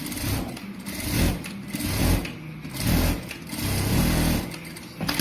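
JASS J7 sewing machine stitching in about four short runs, its motor surging up and easing off between them.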